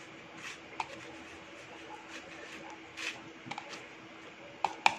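Metal fork tapping and scraping against a plastic bowl while coating a Spam slice in breadcrumbs: scattered light clicks, with two sharper ones near the end.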